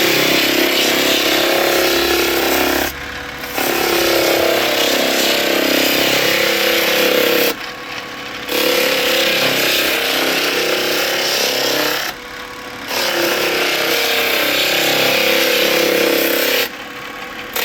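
Floor drum sanding machine running with a loud, steady mechanical noise, which drops away sharply for under a second about every four and a half seconds, four times.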